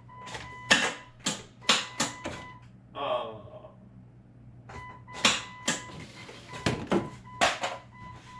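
Repeated sharp clicks from the 1999 Jeep Cherokee's starter as the key is tried, in two clusters about a second in and about five seconds in; the 4.0 inline-six does not crank. The starter only clicks because the positive cable nut at the starter was left loose.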